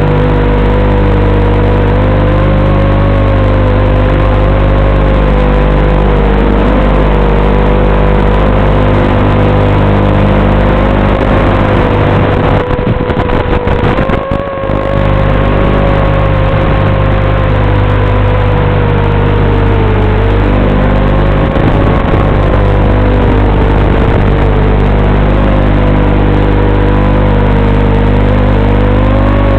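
Racing quadcopter's brushless motors and propellers whining, the pitch wavering up and down with the throttle over a steady low electrical hum, heard through the analog FPV video link. About 13 s in the sound briefly drops and crackles.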